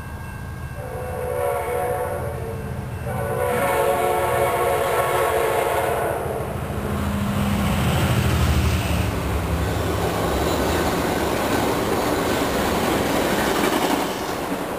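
EMD F59PHI diesel locomotive of an Amtrak Cascades passenger train sounding its horn in two long blasts, then passing at speed: the engine's rumble is loudest about eight seconds in, followed by the rush of the cars' wheels on the rails, which drops off near the end.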